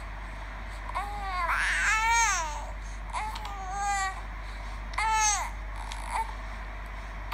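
A baby's babbling: a string of about four high-pitched cooing calls, each rising and then falling in pitch, the first and longest about a second in, with short pauses between them.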